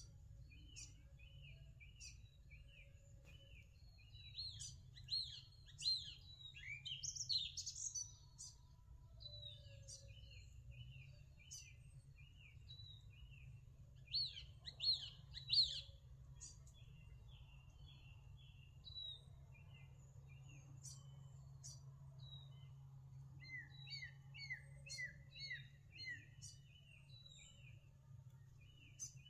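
Small birds chirping: short chirps repeated in quick runs, with two louder flurries of sweeping calls, about five seconds in and again about fourteen seconds in.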